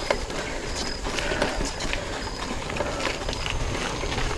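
Mountain bike rolling over a rough dirt singletrack: a steady rush of tyre and trail noise with frequent small clicks and rattles from the bike, over a low rumble.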